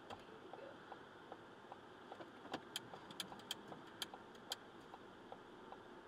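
Car turn-signal indicator ticking evenly, about two and a half ticks a second, over a faint cabin hum, with a short run of sharper clicks and light rattling in the middle.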